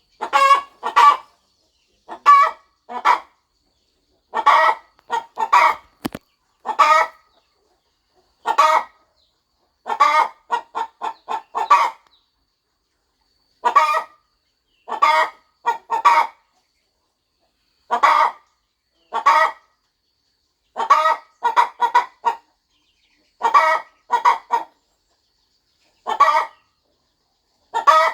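Hen clucking in short runs of two or three clucks, with a pause of a second or so between runs. About ten seconds in comes a longer, quicker run of clucks.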